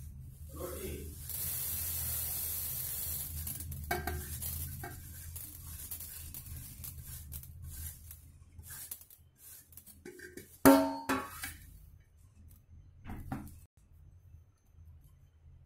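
Mustard seeds poured from a steel plate into a steel jar: a hissing rattle of seeds on metal, with scattered clinks. About eleven seconds in comes a loud steel clank with a brief ring, and a smaller clink follows.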